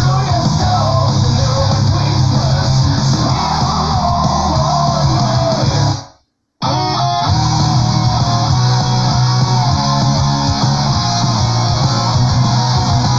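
Power prog metal recording led by electric guitars. About six seconds in, it fades out to a brief silence, then a new passage starts abruptly on guitar.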